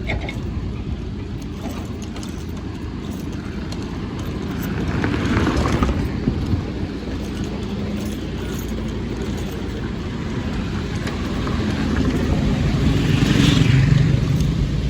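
Steady outdoor road rumble with two motor vehicles passing, one about five seconds in and a heavier one near the end, each swelling and fading over a couple of seconds.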